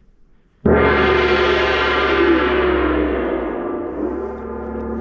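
Water gong struck once about half a second in, then ringing out with a dense, shimmering wash of overtones that wavers in pitch and slowly fades.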